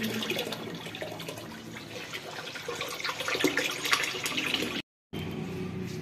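Soapy wash water from a top-load washing machine's drain hose gushing steadily into a plastic tub already partly full of water, broken by a brief total gap about five seconds in.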